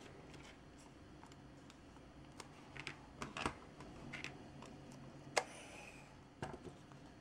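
Light clicks and crackles of masking tape being pressed and smoothed onto a small plastic model part. Near the end, a sharp click and a short hiss come as a strip is pulled from the tape dispenser, followed by a couple more clicks.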